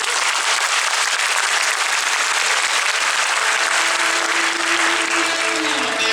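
Audience applauding steadily, with a faint held musical note underneath that slides down near the end.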